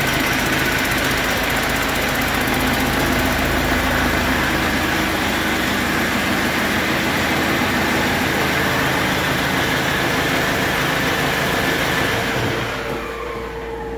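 2016 Detroit Diesel DD5 inline four-cylinder turbo diesel running steadily on a test stand. Near the end it drops in level and winds down.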